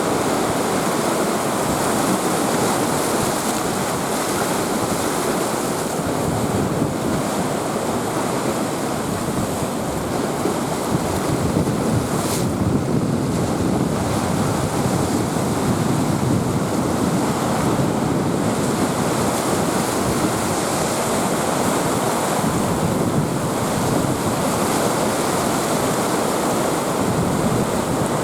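Storm-driven surf on a rough sea whipped up by a typhoon, the waves and strong wind making a dense, steady rush. Wind buffets the microphone.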